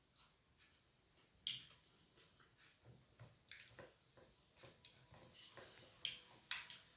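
Quiet close-up eating sounds: chewing with scattered small clicks and smacks, and a few sharper mouth clicks about a second and a half in and again near the end.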